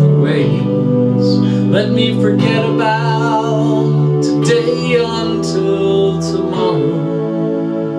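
Instrumental break of a folk song on an Ensoniq synthesizer keyboard: a strummed, guitar-like accompaniment over sustained chords, with a wavering melody line above, easing off near the end.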